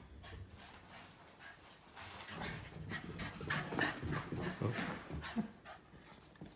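Jack Russell terrier panting in quick, repeated breaths after running about. The panting grows louder about two seconds in and fades again near the end.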